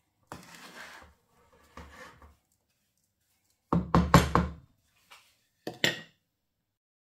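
Wooden spoon scraping through dry, crumbly panjiri in a non-stick frying pan, twice, then a quick run of sharp wooden knocks on the pan about four seconds in and two lighter knocks after.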